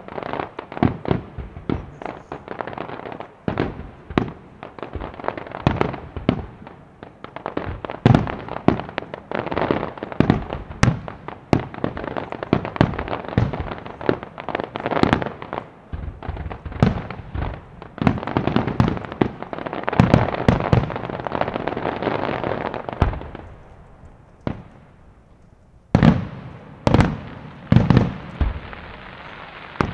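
Italian aerial firework shells bursting in a dense, rapid barrage of bangs mixed with crackle, building to a continuous rush of crackling before dying away about three-quarters through. Then single shell bursts follow about once a second near the end.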